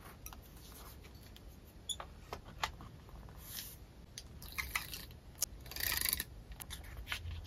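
Scattered small clicks and taps with a few short rustles as paper stickers and a metal clip are handled on an open journal page.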